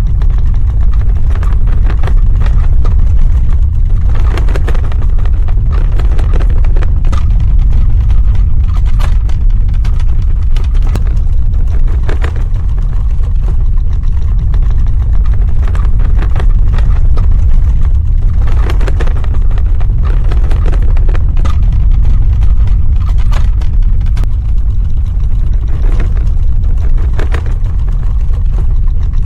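Earthquake sound effect: a loud, continuous deep rumble with scattered crackles and knocks breaking through at irregular moments.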